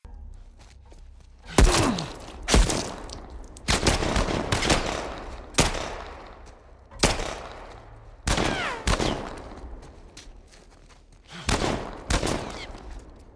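Video game gunfire: about a dozen gunshots, singly and in quick bursts, each with a long echoing tail, over a low rumble.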